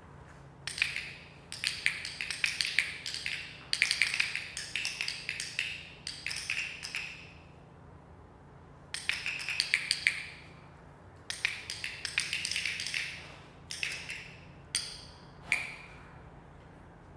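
A group of handheld training clickers clicking in about nine bursts, many quick clicks overlapping in each, with short pauses between. The clicks mark the moments the learner does the wanted behaviour, as in clicker training.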